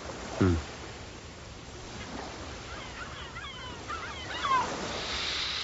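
A steady wash of surf, with several birds calling in short sliding chirps from about halfway through. A brief low vocal sound comes right at the start.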